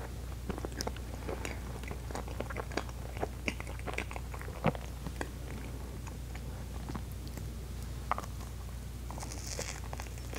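Close-miked eating sounds: soft Baumkuchen cakes with mousse and cream filling being bitten and chewed, many small wet mouth clicks at an irregular pace with a louder click about halfway through. A steady low hum runs underneath.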